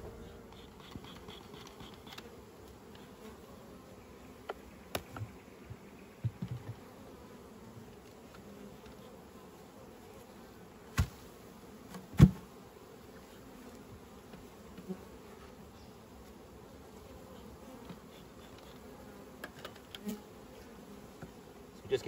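Honeybees buzzing around an opened hive, a faint steady hum. A few sharp knocks and clicks cut through it, the loudest about twelve seconds in.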